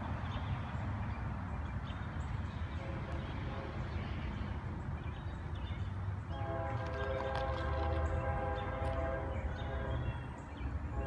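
Low rumble of an approaching diesel freight train, then about six seconds in a locomotive air horn begins sounding a steady chord, breaking off briefly near the end before sounding again.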